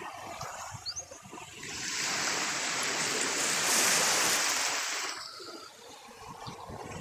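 Small waves lapping on a sandy shore: a wash of water swells about two seconds in and dies away again after about five.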